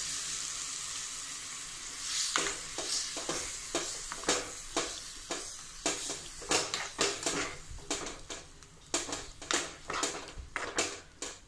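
Metal spoon stirring and scraping in a kadai as coconut paste, water and salt are mixed into the hot tempering for hibiscus pachadi. A sizzle fades over the first two seconds, then repeated scraping strokes come about two a second.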